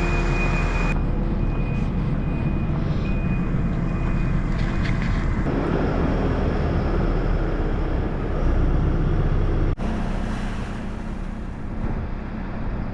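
Tractor engine running steadily. It drops out sharply for an instant about ten seconds in and carries on a little quieter.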